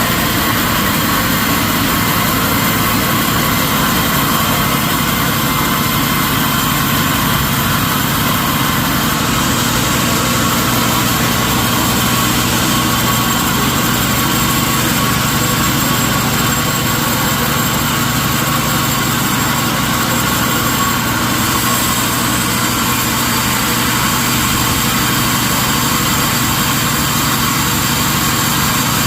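Sawmill machinery running with a steady, loud engine-like drone; its tone shifts slightly about nine seconds in.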